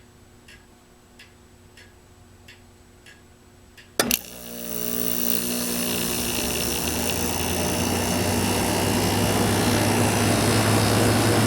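Faint, even ticking about every two-thirds of a second, then about four seconds in a sharp click as the thermostat switches on the 1988 Sears Kenmore 6000 BTU window air conditioner. Its compressor and fan start and run with a steady hum that grows louder. The owner puts the compressor noise down to oil, displaced when the unit was shipped upside down, working its way back.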